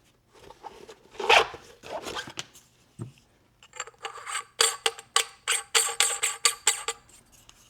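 Suppressor and nylon pouch being handled: rustling and rubbing, a single knock about three seconds in, then a quick run of metallic clicks with a ringing tone, about three or four a second.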